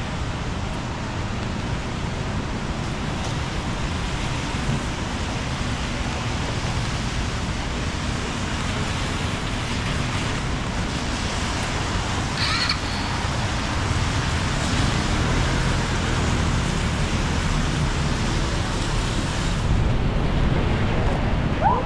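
Steady city street traffic noise: cars and taxis passing, with tyres hissing on rain-wet roads. A brief high squeal comes about halfway through.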